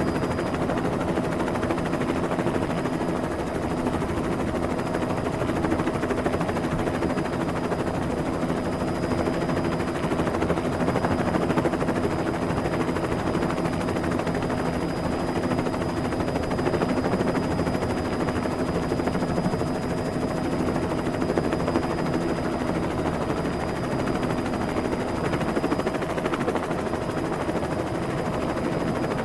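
Helicopter sound effect: the rapid, steady chop of rotor blades with a constant engine whine underneath.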